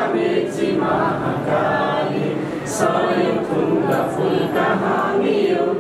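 A group of voices singing together in unison, with held notes.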